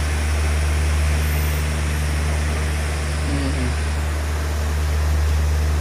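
A steady low droning hum with an even hiss over it, unchanging in level.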